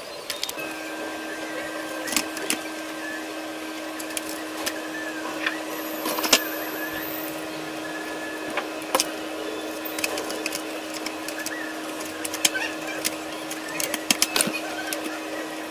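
A steady machine hum with one even tone runs throughout, starting about half a second in. Over it come scattered sharp clicks and taps: plastic camcorder housing parts and a screwdriver being handled and fitted.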